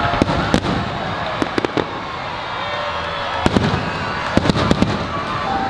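Aerial fireworks bursting overhead: sharp bangs and crackles in quick clusters every second or two.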